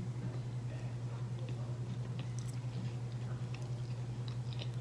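A person chewing a mouthful of chicken up close to the microphone: faint, scattered wet mouth clicks over a steady low electrical hum.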